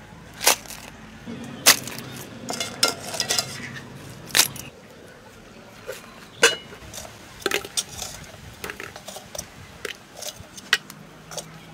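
Metal cookware clinking and knocking as pots and bowls are handled: a series of sharp clanks, a few loud ones spaced a second or two apart, with lighter clinks in between.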